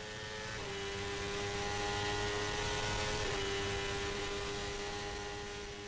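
A steady droning hum made of several held tones, swelling in and fading out again, its pitch stepping down slightly twice.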